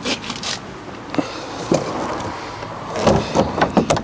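Caravan front gas locker lid being lowered and shut: scattered plastic knocks and clicks, with a louder cluster of thumps about three seconds in as it closes.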